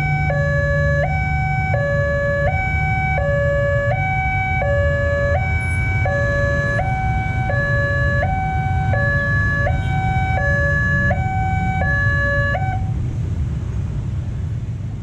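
Railway level-crossing warning siren sounding from the horn loudspeaker on the crossbuck: a two-tone hi-lo signal, each tone about three-quarters of a second, over a steady low rumble. It cuts off near the end, once the train has cleared the crossing and the barriers are going up.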